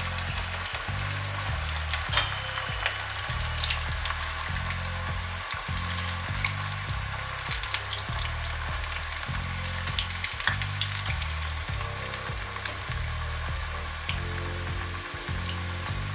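Beetroot vadais deep-frying in hot oil in a small aluminium kadai over a medium flame: a steady crackling sizzle with scattered sharp pops, a slotted ladle stirring now and then. Low background music notes run underneath.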